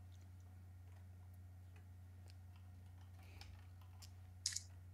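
Near silence: room tone with a steady low hum and a few faint clicks, one a little louder near the end.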